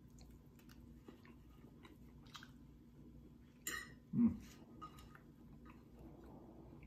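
Faint clicks and light scraping of a fork against a plate, with a louder scrape about three and a half seconds in followed by a short low sound.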